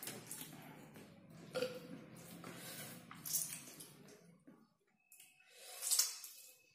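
Chopped hei-yai fruit being mixed by hand with salt and chilli powder on a plate: soft squishing and rubbing, with a few short noisy bursts, the loudest about six seconds in.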